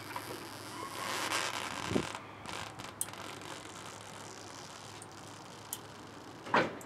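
Floor jack letting down the front of a 1979 Chevrolet Caprice: a rushing noise for about a second that ends in a thump as the car settles, a click, then a sharp knock near the end.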